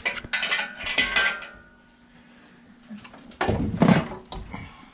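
Metal tools and engine parts clinking and clanking as work goes on in the engine bay. A short ringing note follows the first clinks about a second in, and a louder burst of clanks comes near the end.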